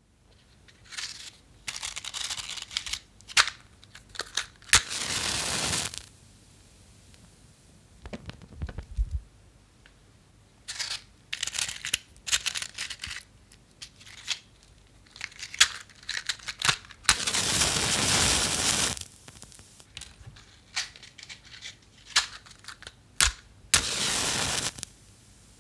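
Safety matches being handled and struck: repeated short scrapes and clicks against the box, and three times a longer hissing flare as a match catches.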